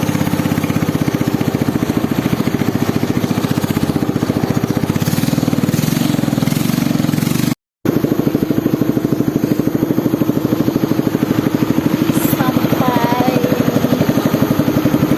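A small engine running steadily with a fast, even firing beat. It drops out for a moment about halfway.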